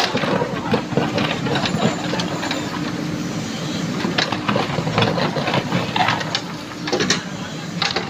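JCB 3DX backhoe loader's diesel engine running steadily while the backhoe digs in mud, with frequent short clanks and knocks from the bucket and arm linkage.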